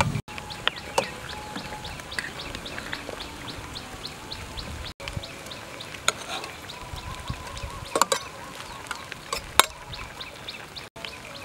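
A metal ladle clinking now and then against an aluminium chimney hotpot as food and broth are spooned in, with a few sharp clinks standing out near the end. Behind it, birds or insects chirp quickly and steadily, about five chirps a second.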